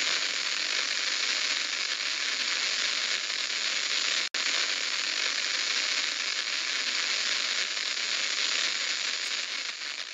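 Steady, dense crackling hiss of the kind laid over old film footage, like a worn record's surface noise. It cuts out for an instant about four seconds in and is quieter near the end.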